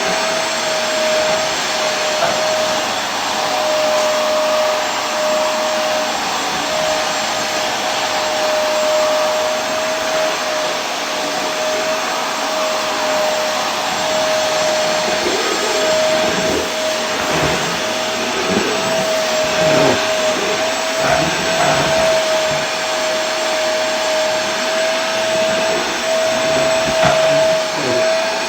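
Vacuum cleaner running continuously: a steady rushing noise with a constant motor whine, and some uneven low rumbling in the second half.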